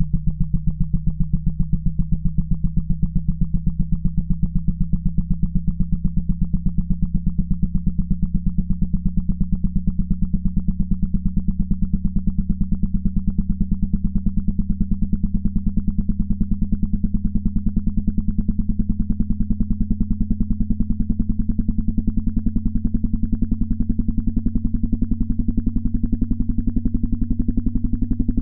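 Synthesized low buzzing test tone, pulsing rapidly and gliding slowly upward in pitch: a hearing-test frequency sweep.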